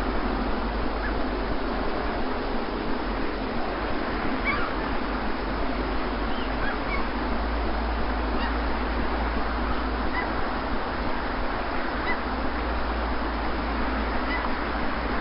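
Steady rush of sea surf with a low rumble underneath, and faint short bird calls every couple of seconds.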